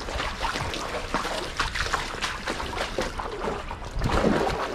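Shallow stream water sloshing and splashing around someone wading through it, in a run of irregular strokes that grows louder about four seconds in.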